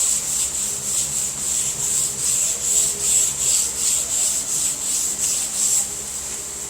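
Sandpaper on a DuraBlock sanding block rasping back and forth over urethane high-build primer on a car hood: even hand strokes, about two or three a second, that stop about six seconds in. A steady high hiss runs underneath.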